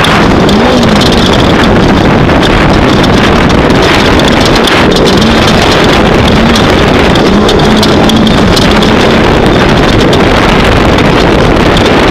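Off-road race vehicle's engine running hard, its pitch rising and falling as the revs change, under a loud, steady rush of wind and running noise.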